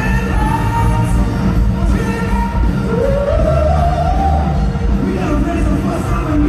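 Live rock band playing through a concert PA: a lead singer sings over electric guitar, bass, keyboards and drums, recorded from among the audience. About three seconds in the voice slides up into a held note.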